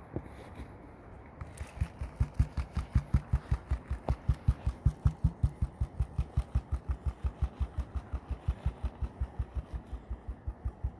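A gold pan of water and black sand being shaken side to side, the water sloshing in quick rhythmic pulses of about five a second, starting about a second and a half in. This is the panning action that stratifies the material so the fine gold settles to the bottom of the pan.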